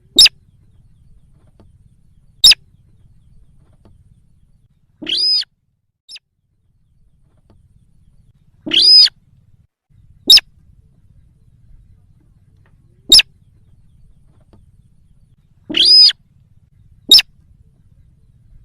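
Sintar lure call: sharp, very brief bird calls repeated every two to three seconds, with a longer call rich in overtones, about half a second long, three times in between.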